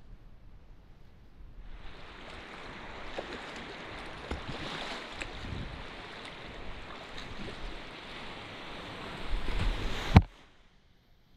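River water rushing and splashing around a kayak as it is paddled, quiet at first and then louder as the boat runs into whitewater rapids. A single sharp knock comes near the end, and the sound cuts off abruptly.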